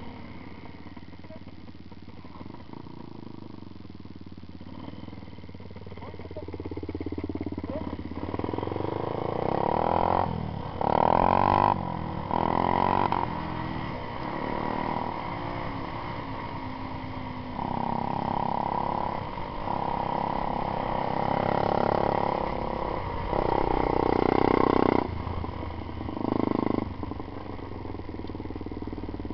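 Off-road motorcycle engine being ridden over rough ground. It runs fairly quietly at first, then revs harder from about a quarter of the way in, with several short, loud bursts of throttle that ease off again.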